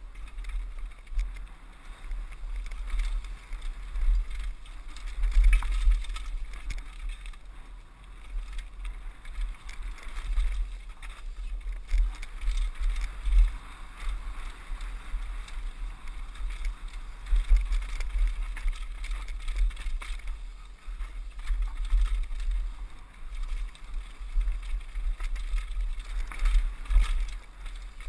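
Mountain bike ridden fast down a dirt trail: tyres rolling over dirt and the bike rattling over bumps, with short knocks. A gusty low wind rumble buffets the helmet camera's microphone throughout.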